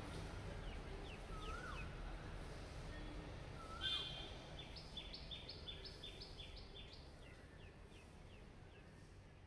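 Birds chirping over a low, steady wash of sea-wave ambience: short falling chirps, a louder call about four seconds in, then a quick repeated call about three times a second, with the whole track fading out.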